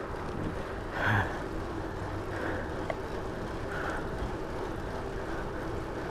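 Wind rushing over the camera microphone and tyre noise from a bicycle rolling along a paved trail, with one brief louder thump about a second in.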